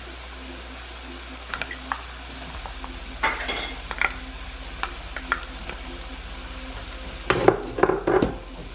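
Beef and onions sizzling steadily in a nonstick skillet while chopped scallions are tipped in from a bowl with a wooden spatula, giving a few light taps. Near the end the wooden spatula scrapes and stirs through the pan, louder than the rest.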